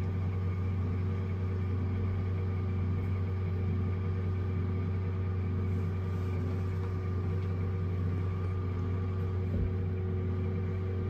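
Steady low machine hum of a glass-walled elevator in motion, even in level with a faint constant tone above the hum.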